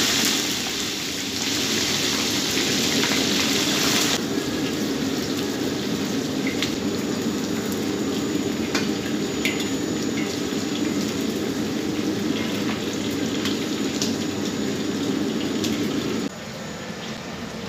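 Chicken pieces deep-frying in hot oil in a wok: a loud sizzle for about the first four seconds that then settles into a softer, steady bubbling, with a few light clicks. The frying sound drops lower near the end.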